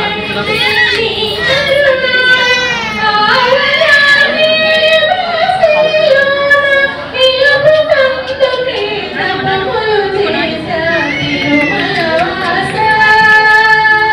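A song playing: a high singing voice holding long, wavering notes and gliding between pitches, with music behind it.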